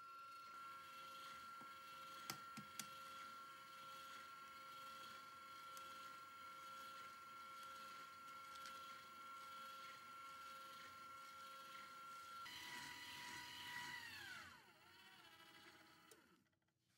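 KitchenAid tilt-head stand mixer running with a wire whip in a steel bowl, its motor giving a quiet, steady whine. About twelve seconds in the pitch shifts, and then the motor winds down with a falling whine and stops. Two light clicks come about two seconds in.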